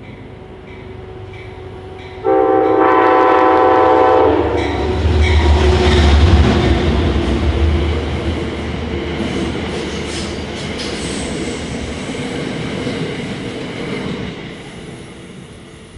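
Amtrak passenger train running through the station: its horn sounds one chord of several notes for about two seconds. The locomotive then passes with a loud low rumble, followed by the steady rolling clatter of the stainless-steel cars, which fades near the end.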